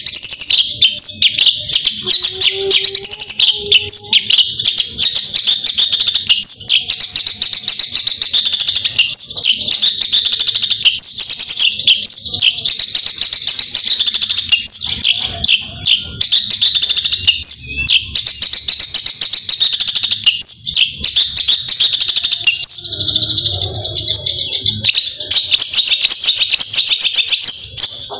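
Cendet (long-tailed shrike) singing loudly in a rapid, unbroken stream of short, high chattering notes, with a brief break about 23 seconds in.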